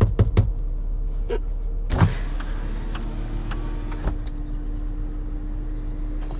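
A steady low mechanical hum, with a few sharp clicks and knocks in the first half second and another knock about two seconds in.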